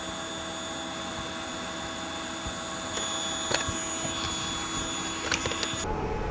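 An electric motor running steadily with an even hiss and a few light clicks; it cuts off suddenly near the end.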